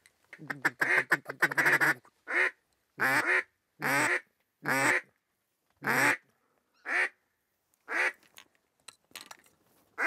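Duck call blown in hen mallard quacks: a quick string of notes, then single loud quacks about once a second, trailing off into softer notes near the end.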